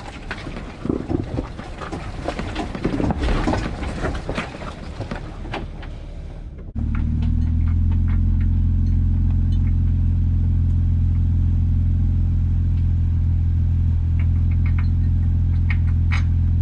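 Jeep on a muddy off-road trail. About six and a half seconds of rough, clattering noise come first, then an abrupt cut to a loud, steady low engine drone with a few light ticks.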